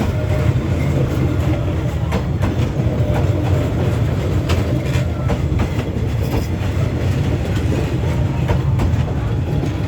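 Train passing at close range: a steady low rumble of wheels on the rails, with scattered clacks as the wheels cross rail joints.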